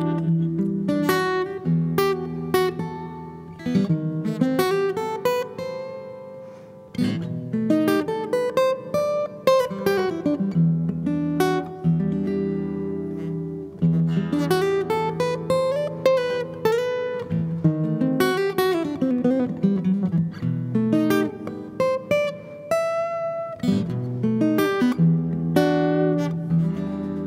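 Steel-string acoustic guitar playing a solo: runs of picked notes climbing and falling, with strummed chords between.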